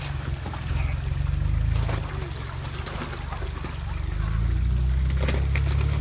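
Jeep Wrangler JK's engine rumbling low as it crawls up a rock waterfall, getting louder about four seconds in, over running water, with occasional clicks and knocks of tyres on rock.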